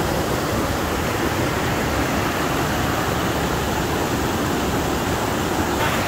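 Steady rush of a waterfall's white water cascading over rocks in a mountain stream. The hiss turns a little brighter near the end.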